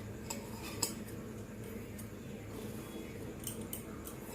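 Thick palm fruit pulp being poured and scraped into a kadai, making soft squishing sounds. A few light clicks of utensil against the vessel are scattered through it.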